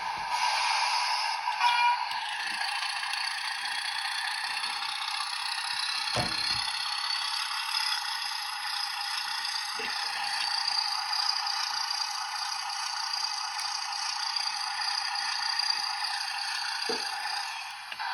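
Traintech SFX sound capsule's small speaker playing a diesel locomotive engine sound. It runs steadily, thin and with no low end. A few soft low knocks come through, at about six seconds, ten seconds and near the end.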